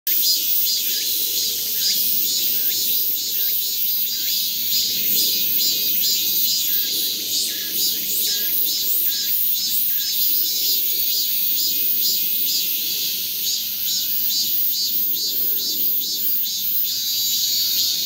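Min-min cicada (Hyalessa maculaticollis) singing: a high-pitched call pulsing evenly about one and a half times a second, without a break.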